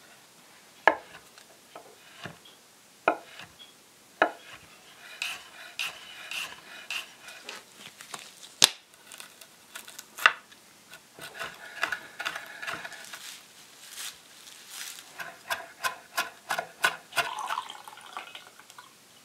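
Food-prep sounds on a wooden cutting board. First come a few sharp separate taps and knocks. Then a metal spoon scrapes the seeds out of a serrano pepper, broken by occasional sharp clicks, and near the end there is a run of quick small clicks and scrapes.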